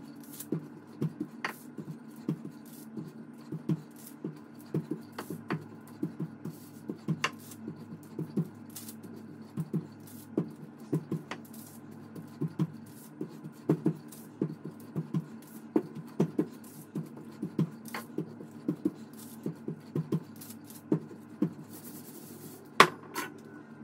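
Rolling pin rolling tart dough between sheets of baking paper: a run of quick, uneven thuds and paper rustles, two or three a second, as the pin is pushed back and forth, with a sharper knock near the end.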